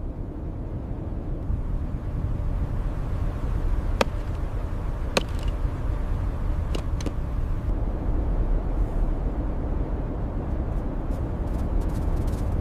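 Blizzard wind rumbling steadily, with a few sharp cracks about four, five and seven seconds in.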